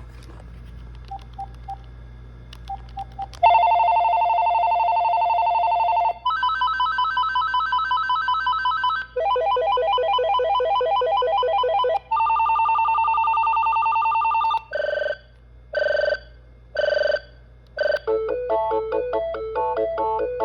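AT&T EL52250 cordless phone playing through its ringtones one after another. A few short soft beeps come first, then several electronic trilling ring patterns about three seconds each, then four short separate rings, and near the end a melodic tune ringtone.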